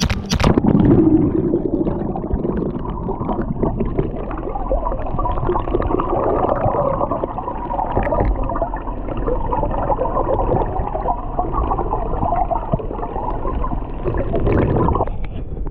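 Water heard through a camera held under the sea: a splash as it goes in, then a muffled, steady churning and gurgling of water, which stops abruptly near the end.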